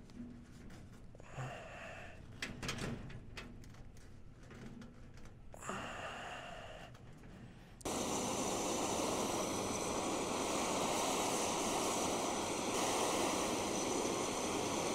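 Small clicks and knocks from handling a brass fitting on copper pipe, then about halfway through a propane hand torch opens with a sudden, steady, loud hiss that carries on to the end.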